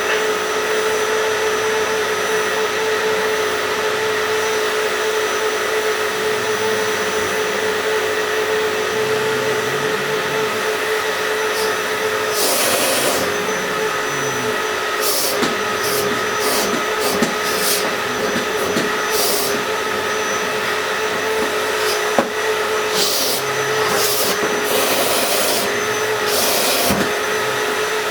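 Vacuum cleaner running steadily with a constant whine, and short bursts of louder, higher hiss through the second half.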